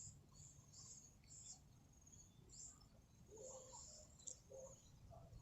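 Near silence with faint, high-pitched insect chirping and trilling, a few soft lower calls in the middle, and a small click about four seconds in.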